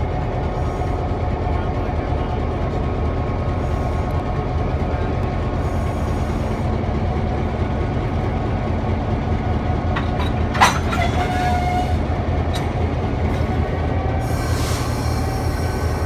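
A heavy engine running steadily, with one sharp metallic clank about ten and a half seconds in as the coupling hooks up, followed by a brief ringing tone. A short hiss comes near the end.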